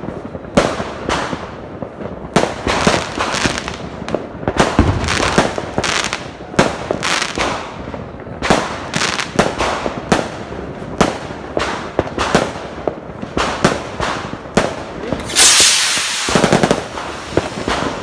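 Fireworks going off in a rapid, irregular string of sharp cracks and pops, with a loud fizzing hiss about fifteen seconds in.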